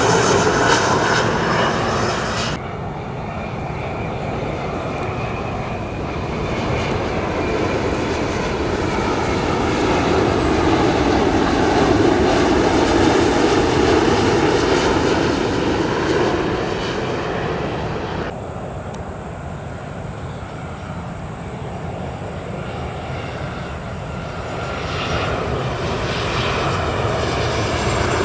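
Jet airliners passing close, in three clips. First the end of a Boeing 737-300 freighter pass. Then, from a sudden cut a few seconds in, an ANA Boeing 787-9 with Rolls-Royce Trent 1000 engines, its engine noise swelling and fading with a sliding pitch as it goes by, loudest about halfway. After another sudden cut near two-thirds in comes a quieter Boeing 737-800 with CFM56-7B engines, growing louder near the end.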